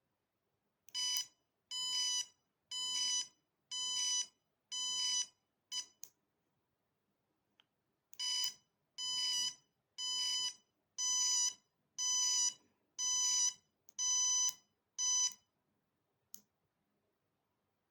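Bicycle taillight's electronic beeper sounding a pitched beep about once a second: five beeps, a click, a pause of about two seconds, then eight more beeps ending with another click.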